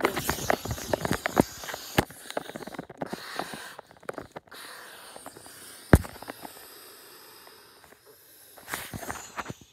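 Rustling and clicking handling noise from a camera being swung about in the hand, with scattered knocks. The loudest is one sharp knock about six seconds in, and it is quieter after that.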